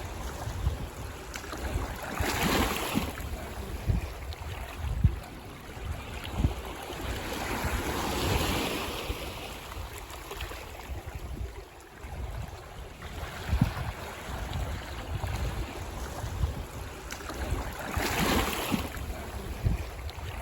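Ocean waves breaking on a beach: three waves surge and wash in, with a steady surf hiss between them. Wind buffets the microphone in low rumbles throughout.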